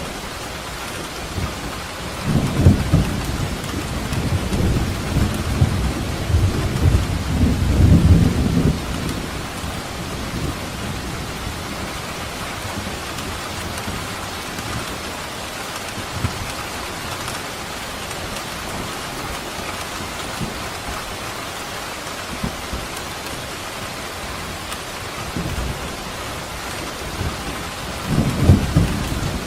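Steady rain falling, with rolling thunder: a long low rumble starts a few seconds in and lasts about six seconds, and another begins near the end.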